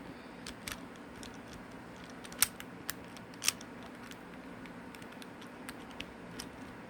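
Plastic Rubik's cube pieces clicking as they are handled and pushed back into the cube by hand: several sharp separate clicks, the loudest about two and a half seconds in and another about a second later.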